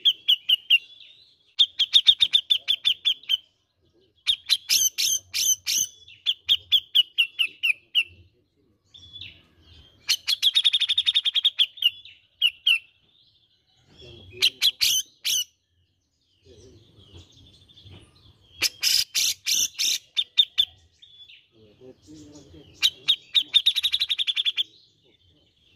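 Grey-cheeked bulbul (cucak jenggot) singing in repeated bursts of rapid chattering notes, each burst a second or two long, with short pauses between.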